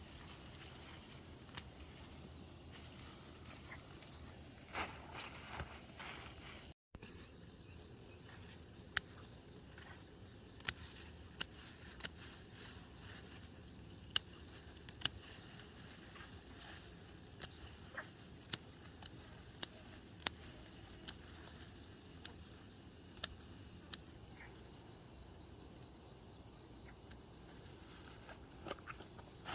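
Steady, high-pitched chorus of insects, with a short pulsing trill near the end. Scattered sharp clicks and taps sound over it, louder than the chorus.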